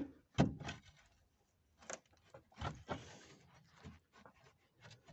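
A few light, irregular clicks and knocks, about five in all; the sharpest comes about half a second in.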